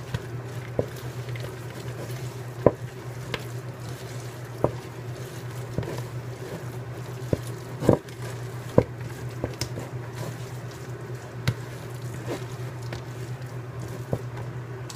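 A spoon stirring a thick ricotta and mozzarella filling in a plastic mixing bowl: wet squishing with irregular knocks of the spoon against the bowl, roughly once a second. A steady low hum runs underneath.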